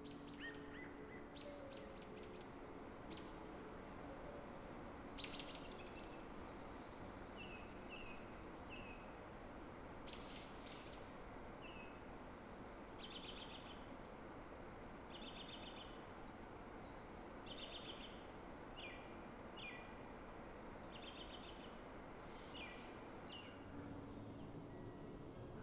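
Blue jays calling: a run of short, harsh calls and quick falling notes, repeated every second or two over steady background noise. A single sharp click sounds about five seconds in.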